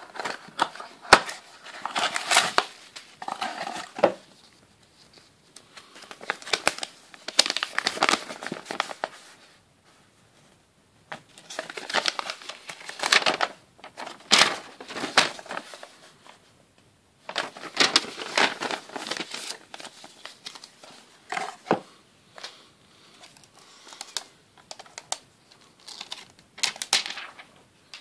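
Packaging being handled during unboxing: a cardboard box opened, a paper instruction leaflet unfolded and plastic wrapping taken off. Irregular bursts of rustling and crinkling with sharp clicks, with a few short pauses.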